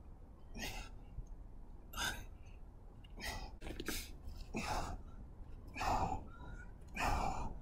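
A man breathing hard in short, forceful exhales, about six of them roughly a second apart, as he curls a heavy rock; the last two are the loudest.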